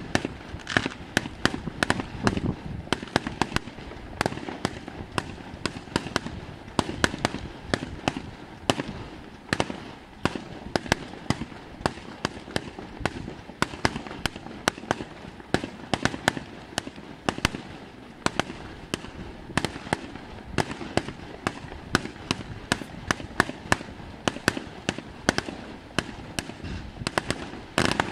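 Aerial fireworks display: a rapid, continuous series of sharp bangs and crackles from bursting shells, several a second, over a steady low rumble.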